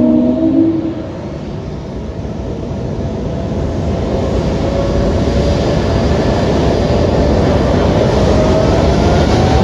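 Delta jet airliner's engines spooling up as it begins its takeoff roll. A deep rumble builds steadily in loudness after the first second or two, with a thin whine rising slowly in pitch over it.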